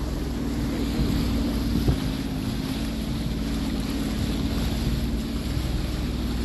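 Jet ski engine running at a steady cruising speed, with wind buffeting the microphone and water rushing past the hull.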